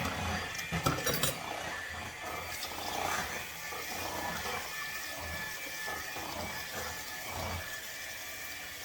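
Kitchen handling sounds: utensils and dishes clinking a few times about a second in, then quieter scraping and shuffling.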